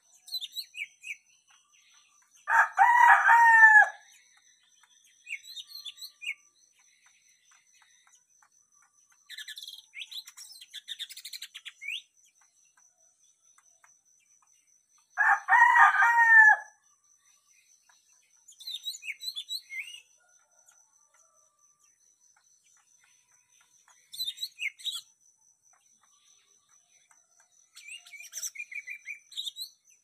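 Caged cucak mini songbirds chirping in short, high, quick bursts every few seconds. Twice, once near the start and again about halfway, a rooster crows louder and lower, each crow about a second and a half long.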